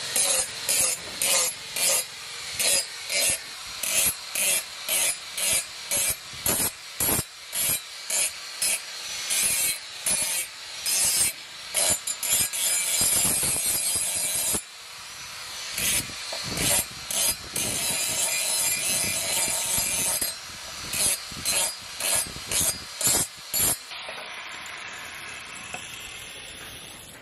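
Angle grinder with a sanding disc grinding rust off a steel knife blade in short repeated passes, about two a second, with a steadier stretch of continuous grinding midway. Near the end the grinding stops and a quieter sound fades away.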